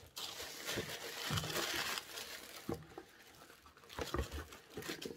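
Packaging crinkling and rustling as items are handled in a cardboard box, loudest in the first two seconds, then a few light knocks near the end.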